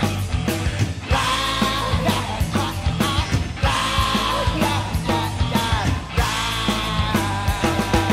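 Rock band playing: electric guitars, bass and drum kit, with a melody line on top that is held for a second or two at a time and bent in pitch.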